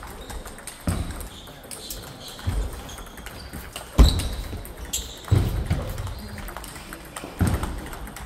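Table tennis play echoing in a large hall: a handful of sharp knocks and thuds from ball strikes and footfalls on the wooden floor, one every second or two, the loudest about four seconds in.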